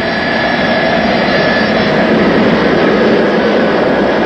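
Boeing 747-100's four Pratt & Whitney JT9D turbofan engines running at high thrust during a high-speed taxi run, a steady jet roar. A faint high whine sits over it in the first half.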